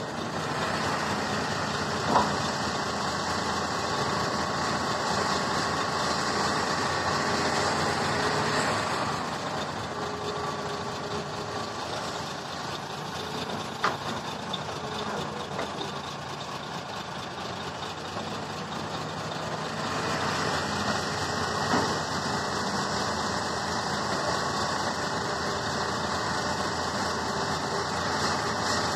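Hitachi ZX350-5G excavator's diesel engine running steadily through a dig-and-load cycle, louder while the arm digs and swings in the first third and the last third, easing in between. Three sharp clanks stand out, about two seconds in, halfway through, and a little past two-thirds.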